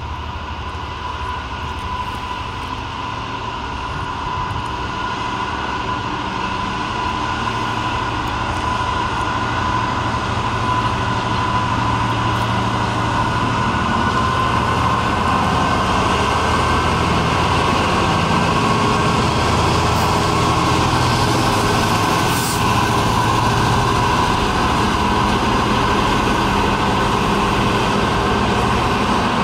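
Freightliner Class 66 diesel locomotive's two-stroke V12 engine running as it passes. It grows louder through the first half, with a steady high whine over the low engine note.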